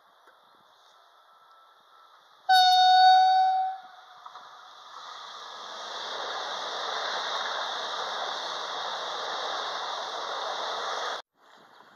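Electric multiple unit train gives one long horn blast of about a second as it approaches, then passes close by with steady wheel and running noise that builds up and stops abruptly near the end.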